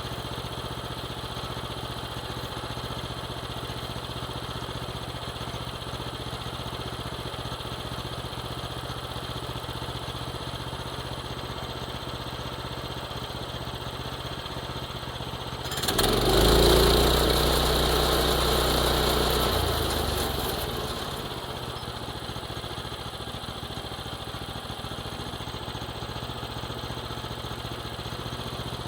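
A small engine idling steadily. A little past halfway a louder rush of noise with a deep low rumble lasts about five seconds, then dies back to the idle.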